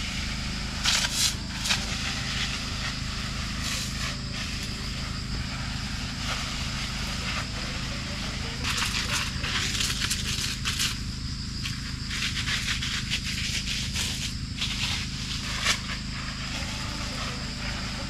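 Pesticide spray from a hose-fed spray gun hissing and spattering into the leaves of a fruit tree. It comes in irregular bursts, a few short ones early on and longer runs through the middle and near the end, over a steady low hum.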